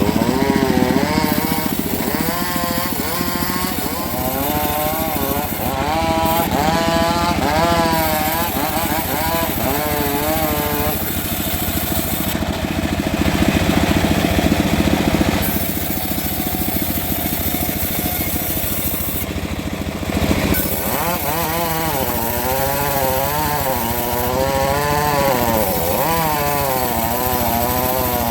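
Engine-driven saw running and cutting mahogany, its motor note wavering up and down as the blade takes load, with a steadier stretch in the middle.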